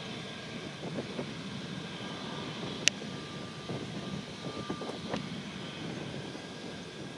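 Boeing 757 jet climbing away after takeoff, heard from a distance as a steady rush of engine noise with a faint whine. A single sharp click a little under three seconds in.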